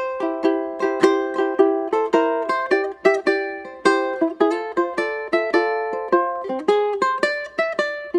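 Light instrumental background music: a melody of short notes that fade quickly, played in a steady quick rhythm.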